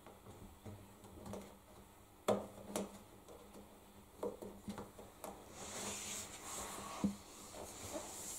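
A rubber door seal being worked by hand onto the metal rim of a front-loading washing machine's door opening: scattered clicks and soft knocks, the sharpest about two seconds in and again near the end, with rubbing and rustling for the last few seconds over a steady low hum.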